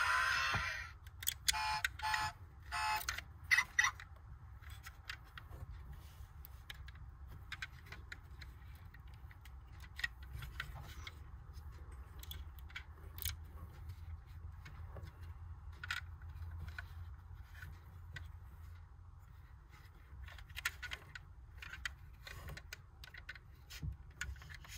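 Faint small clicks and taps of a die-cast model car's opening doors, bonnet and tailgate being worked by hand, scattered irregularly, over a low steady hum. A few short pitched tones sound in the first few seconds.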